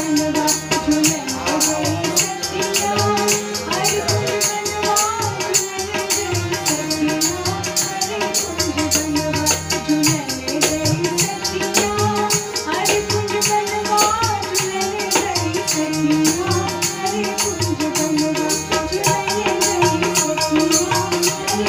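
Kajri folk song with tabla, a voice singing a bending melody, and a fast, even jingling percussion running through it.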